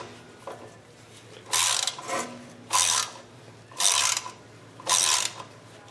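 3/8-inch ratchet on an extension clicking in short bursts, about one every second, as a 16 mm wheel hub bolt is turned out.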